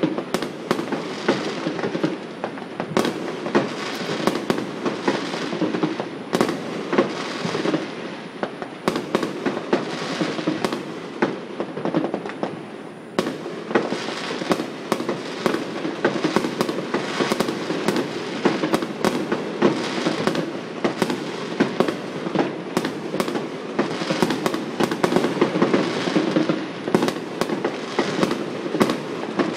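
Many fireworks going off at once: a continuous dense crackle with frequent sharp bangs, easing off briefly about twelve seconds in.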